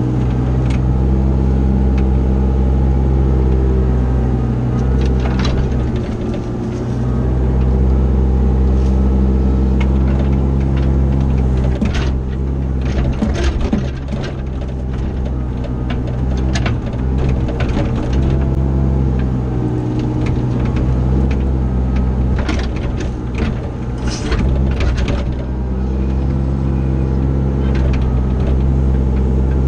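CAT 304 mini excavator's diesel engine running steadily while the machine works dirt, with a cluster of sharp knocks and scrapes through the middle stretch.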